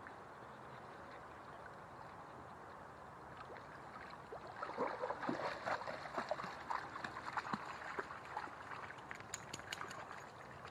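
A dog swimming in a shallow river, then splashing through the water as it wades out, a run of uneven splashes starting about four and a half seconds in and easing off near the end.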